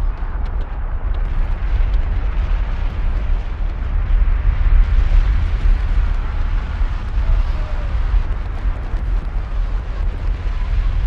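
Fireworks going off in a continuous barrage: a dense, unbroken rumble of bursts with sharp crackles scattered on top, loudest around the middle.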